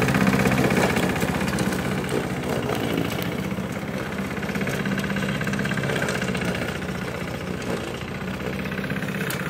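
Petrol lawn mower engine running steadily while the unmanned mower drives away across the grass, its sound slowly growing fainter.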